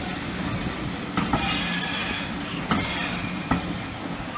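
Railway passenger carriages rolling slowly away behind a steam locomotive, the wheels knocking over rail joints a few times, with a brief high-pitched wheel squeal about a second and a half in.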